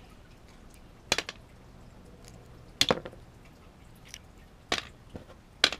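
Small clips popped off a mesh stencil wrapped around a lure: four sharp clicks, the first three about two seconds apart and the last close after the third.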